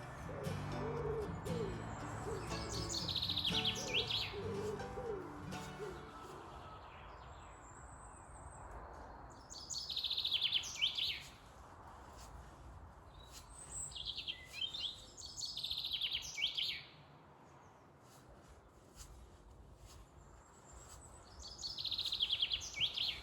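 A songbird singing short, quick phrases of high notes, repeated several times with pauses between them. Background music fades out in the first few seconds.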